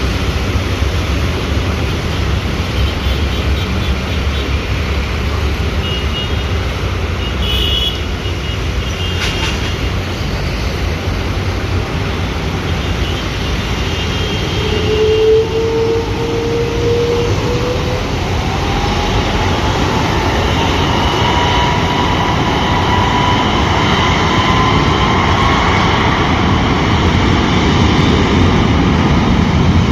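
Jet engines of an Airbus A330-300 running with a steady rumble. From about halfway a whine rises in pitch, and the sound grows louder toward the end as the engines spool up.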